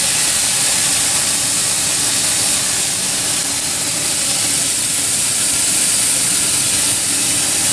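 Steam blower ring in a vertical fire-tube boiler's smokestack hissing steadily as live steam is jetted up the stack to force draft through the firebox fire.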